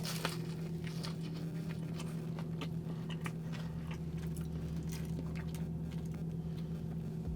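Close-miked chewing and biting of a gyro: many short mouth clicks and smacks, over a steady low hum.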